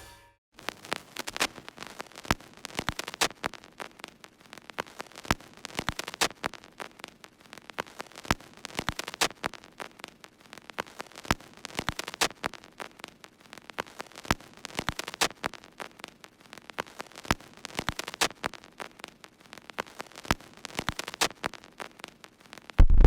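Irregular crackling static: sharp clicks and pops of varying loudness over a faint hiss, with a short, loud, low boom near the end.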